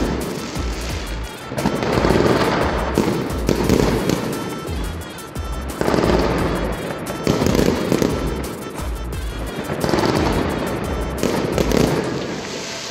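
Aerial fireworks bursting with dense crackling and bangs, over background music. The crackling thins out near the end.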